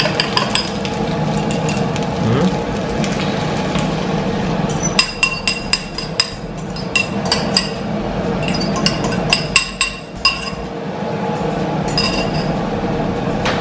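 A fork clinking against a ceramic bowl in quick clusters as beaten egg is scraped out and poured into a frying pan, over a steady noise.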